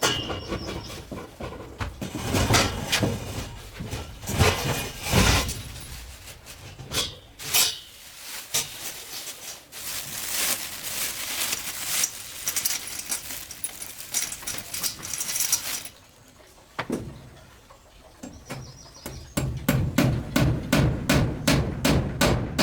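Hand-tool work sounds: irregular knocks and scraping, then, near the end, a run of quick, even strikes about three a second.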